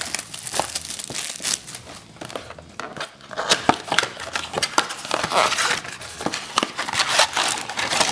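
Panini Donruss NBA retail blaster box being opened and handled by hand: irregular crinkling and scraping of cardboard and wrappers, louder a little past the middle and again near the end.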